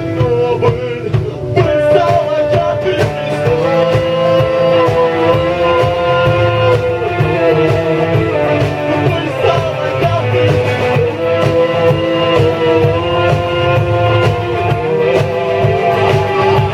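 Live rock band playing a song, with drums, bass, electric guitar and keyboards. Long held notes run over a steady, loud backing.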